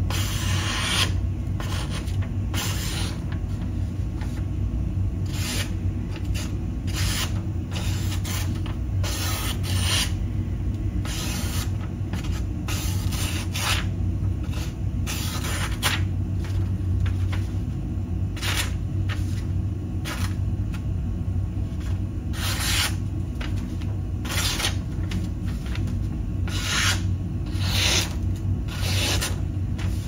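A folding pocket knife slicing through thin cardboard in repeated short strokes at an uneven pace; the blade is not freshly sharpened. A steady low hum runs underneath.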